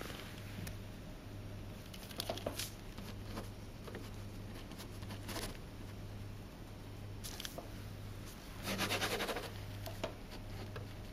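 Pen scratching on paper as a signature is written, with light paper rustles and a louder rustle about nine seconds in, over a steady low hum.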